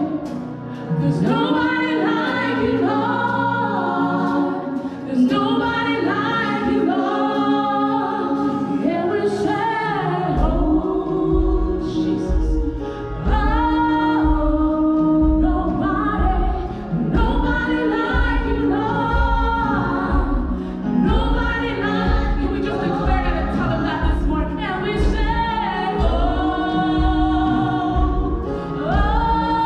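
Gospel choir singing a praise and worship song. A steady low beat joins about ten seconds in.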